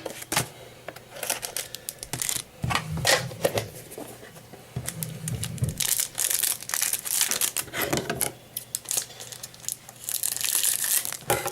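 A trading-card pack wrapper being torn open and crinkled, with repeated rustling bursts and scattered clicks as the cards are handled.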